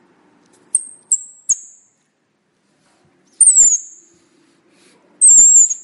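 Song thrush calls: three short, sharp, high notes in quick succession about a second in, then two longer thin high calls that fall slightly in pitch, about two seconds apart.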